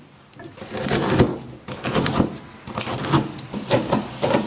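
Chinese cleaver chopping spicy hot pot base fine on a thick wooden chopping block: a steady run of knocks, about three a second, starting about a second in.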